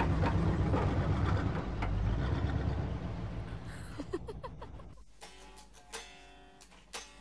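A low rumble fades out over the first few seconds, and about five seconds in a guitar starts up quietly with single plucked notes and light strums.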